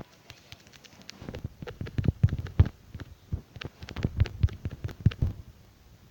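Quick, irregular soft taps and thumps close to the microphone, like handling noise. They start about a second in and stop after about five seconds.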